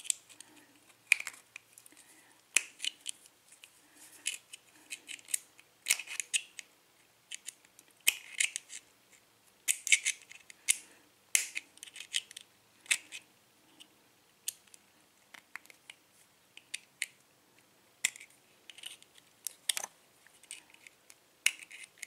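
Small metal tool working at a padlock, prying at the clip that holds the lock's core in: irregular sharp metallic clicks and scrapes, some in quick clusters.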